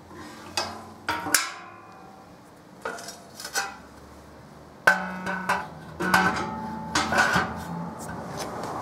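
Sheet-steel wood stove being handled: a dozen or so sharp metal clanks and knocks, several ringing briefly, as the firebox front is closed and the steel cover plate is fitted over it.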